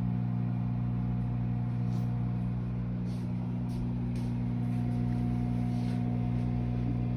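Microwave oven running, a steady electrical hum as it heats a bowl of marshmallows, with a few faint ticks.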